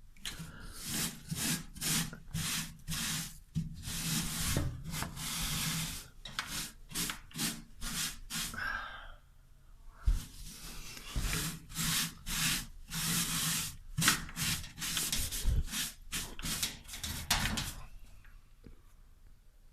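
Repeated hand scrubbing strokes on a hard surface, one or two a second, with a short pause midway and a few dull knocks in the second half.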